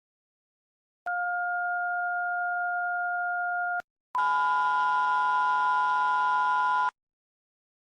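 Electronic emergency alert tones: after a second of silence, a steady plain tone sounds for nearly three seconds, and after a brief gap a fuller, chord-like steady tone follows for about as long, both cutting off abruptly.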